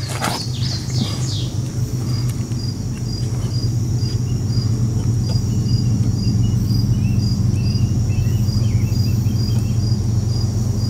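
An insect chirping in an even rhythm, about two short chirps a second, with a few bird chirps near the start and faint bird calls later, over a steady low hum.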